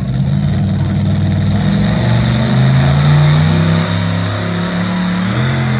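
Engine of a competition pulling vehicle running loud at high revs during a pull, its pitch climbing, dipping about four seconds in, then rising again near the end.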